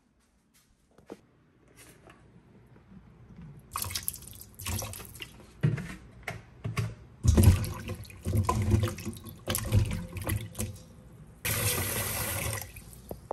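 Water running from a kitchen tap and splashing, with irregular knocks and clatter from things being handled under it. It begins a few seconds in, and near the end there is a steadier stream of running water.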